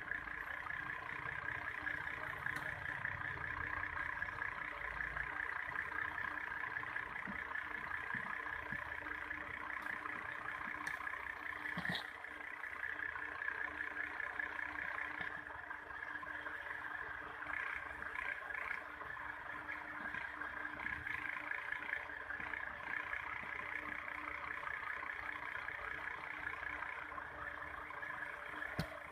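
Steady electrical buzz and hum from a homemade 12-volt transistor step-up circuit while it charges a 400-volt capacitor, with a single short click about twelve seconds in.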